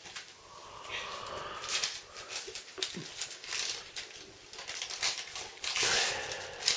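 Plastic wrapping on a pack of Top Trumps cards crinkling and crackling as it is handled and pulled open, in irregular bursts that are loudest near the end.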